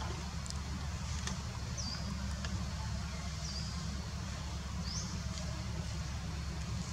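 Steady low outdoor rumble with three short, faint high squeaks, about two, three and a half and five seconds in.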